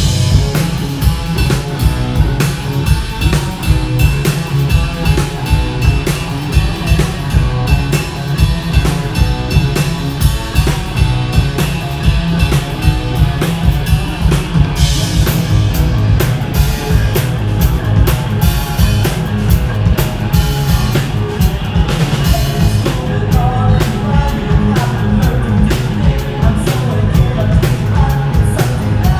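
Live band playing a rock song: a drum kit keeping a steady beat under electric guitar and bass guitar.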